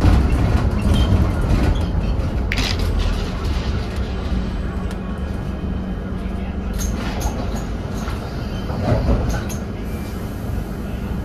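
Interior noise on the upper deck of a Scania OmniCity double-decker bus (Scania N230UD chassis): its diesel engine and drivetrain running with a steady low rumble as the bus slows almost to a stop. A sharp click comes about two and a half seconds in, and a few light rattles follow later.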